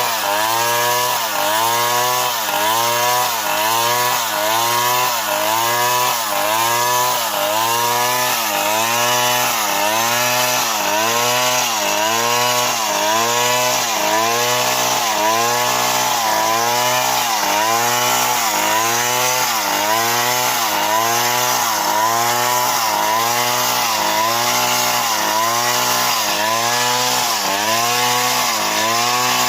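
STIHL MS 070 two-stroke chainsaw running under load while sawing wood, its engine pitch dipping and recovering in a steady, regular pattern about once a second.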